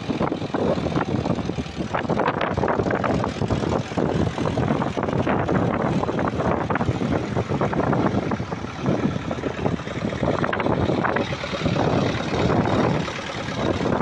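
Vintage Massey Ferguson tractor engine running under load while pulling a plough through heavy, wet soil.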